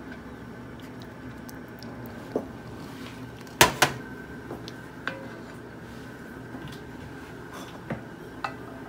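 A ceramic bowl set down on a stovetop with two sharp knocks about three and a half seconds in, amid a few lighter clinks of a serving spoon and dishes, over a steady electrical hum.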